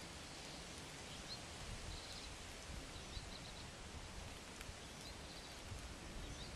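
Quiet outdoor ambience: a steady faint hiss, with small birds chirping in the distance, short high chirps and little trills several times.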